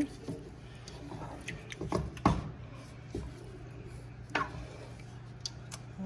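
A wooden spoon stirring thick meat sauce in a metal stockpot, with scattered sharp knocks of the spoon against the pot, the loudest about two seconds in, over a steady low hum.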